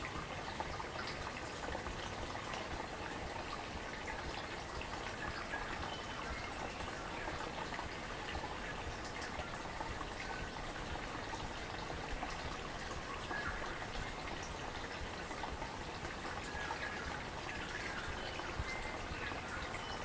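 A babbling, gurgling forest stream running steadily, with a few faint high bird chirps now and then.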